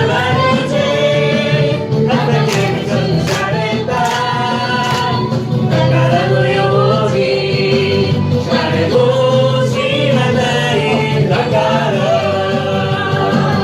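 A Japanese Christian praise song sung by a group of voices over an instrumental backing track.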